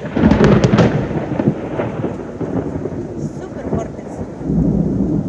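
Thunder rolling during a rainstorm, over steady rain. The rumble is loudest right at the start, eases off, then builds again near the end.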